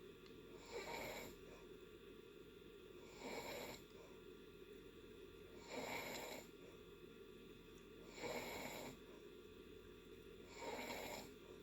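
A person snoring in deep sleep: a faint, short rasping snore about every two and a half seconds, five times.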